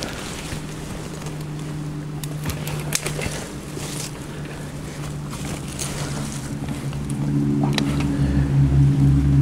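A steady low motor hum that swells louder near the end, with scattered sharp snaps and rustles of leafy branches being pulled and broken with a pole.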